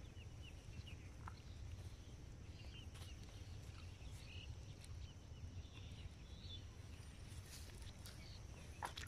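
Faint outdoor ambience: a steady low rumble with scattered faint bird chirps and a few small clicks, the loudest click near the end.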